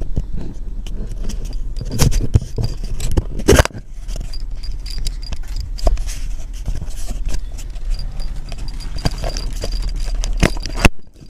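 Camera handling noise inside a car: irregular clicks, knocks and rustling over a steady low hum, with the loudest knocks about two and three and a half seconds in. The sound cuts off near the end.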